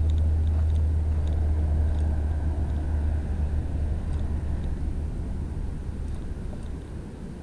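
Low, steady engine rumble of a passing vehicle that fades gradually away.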